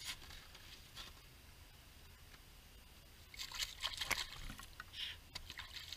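A bass released into a hole in the ice: brief splashing and sloshing of water about three and a half seconds in, after a quiet stretch, with a smaller splash a second later.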